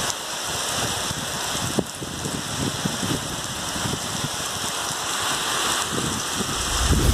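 Heavy rain falling steadily, a dense even hiss, with a brief low rumble near the end.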